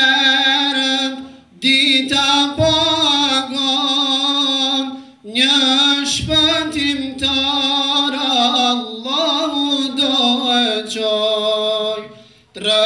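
Men singing an Islamic devotional song (ilahi), long held and ornamented vocal lines in three phrases with short breaks for breath about a second and a half in, about five seconds in and near the end.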